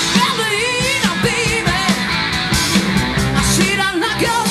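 A live hard-rock band playing loud: an electric guitar lead of bent, wavering notes over bass and drums.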